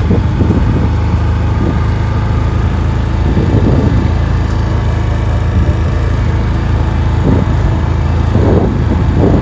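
Can-Am Outlander 650 ATV's V-twin engine running steadily while being ridden, with a few brief knocks from the machine along the way.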